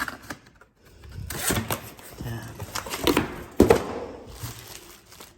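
Irregular knocks, clicks and rustling from handling and unpacking a ceiling-mounted heat pump indoor unit, with a sharp knock about three and a half seconds in.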